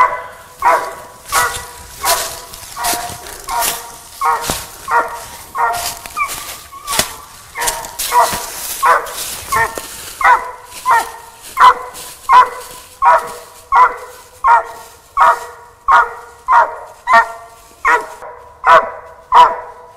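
Squirrel dog barking at a tree in a steady, even rhythm, about one and a half barks a second, getting louder in the second half: the steady tree bark of a dog that has treed a squirrel.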